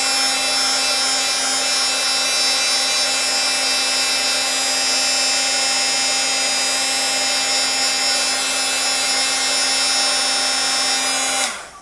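Craft heat gun running steadily, a noisy fan-motor whir with a steady whine, blowing hot air onto a painted paper leaf to dry it. It switches off suddenly near the end.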